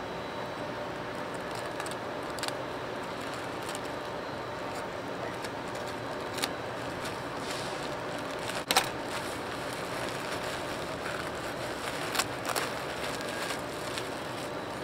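A plastic courier pouch being slit with a box cutter and torn open by hand, giving scattered crinkles and sharp clicks, the sharpest a little before nine seconds in, over a steady background hiss.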